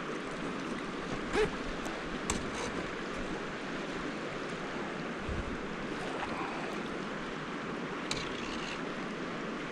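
Steady rush of a creek running high after rain, with a few faint clicks and knocks.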